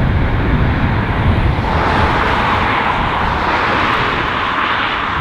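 Audi R8 V10 Performance with a Capristo straight-pipe exhaust driving by, a loud, dense rumble that turns into a brighter rushing sound from about two seconds in.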